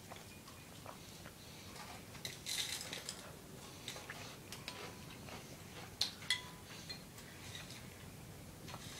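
Dry Honey Nut Cheerios rattling and clinking in a bowl as handfuls are scooped out and eaten, with scattered light clicks, a louder crackly patch about two and a half seconds in, and two sharp clicks around six seconds in.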